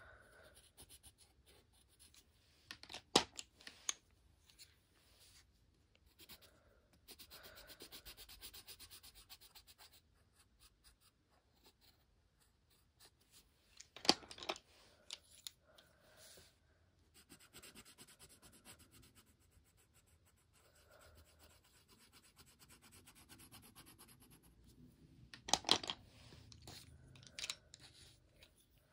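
Colored pencil scratching back and forth on a colouring book page in stretches of fast, even strokes. A few sharp clicks come in between, three times.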